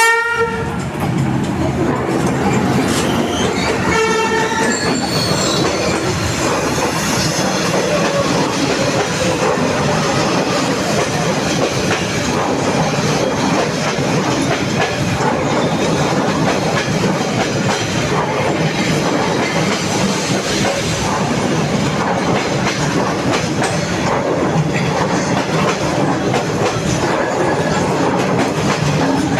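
Train going past close by on a street-level track: a short horn blast about four seconds in, then the continuous rumble and clatter of the wheels on the rails.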